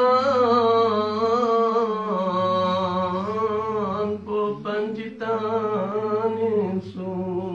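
A man chanting a Balti qasida unaccompanied into a microphone, holding one long wavering note for about four seconds, then singing shorter held phrases with brief breaths between them.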